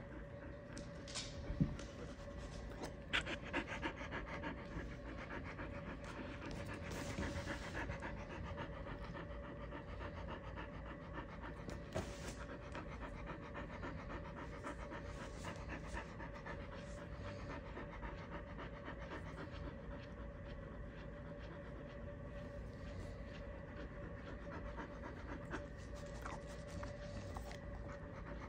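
Siberian huskies panting steadily with open mouths, with a couple of sharp clicks in the first few seconds.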